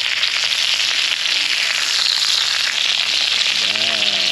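Salmon fillets, bell peppers and onions sizzling and crackling in hot oil on a round disco griddle, a steady hiss with fine spitting crackles.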